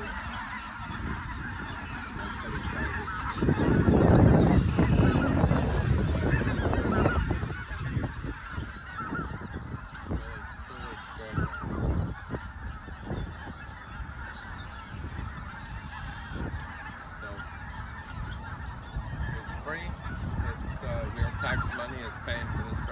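A huge flock of snow geese calling on the water: a dense, continuous din of overlapping honks and yelps. A loud low rumble covers the calls for a few seconds near the start.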